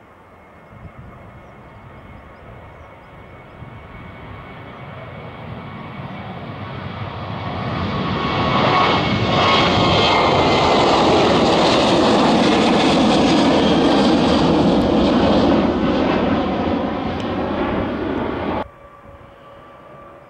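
Boeing 737-800's CFM56-7B turbofan engines at takeoff power, building from a distant rumble to loud as the jet rolls down the runway and climbs past, with a whine that falls in pitch as it passes. The sound cuts off suddenly near the end, leaving fainter engine noise.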